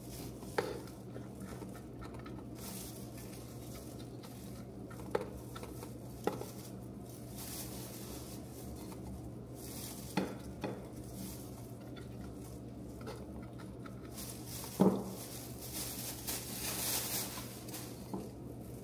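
Household handling noises: scattered light clinks and knocks over a steady low hum, the loudest knock about 15 seconds in, followed by a couple of seconds of hiss.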